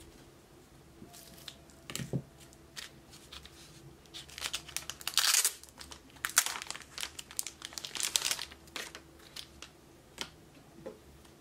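Packaging crinkling and tearing as a stack of photocards is unwrapped and handled: irregular crackles that build to a loud burst a little past the middle, then thin out near the end.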